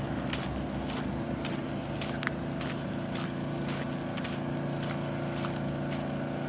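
Footsteps on gravel at a walking pace, about two a second, over a steady low engine hum from vehicles.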